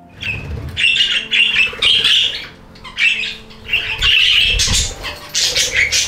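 A flock of budgerigars chattering in quick, overlapping bursts, with short lulls about two and a half and three and a half seconds in.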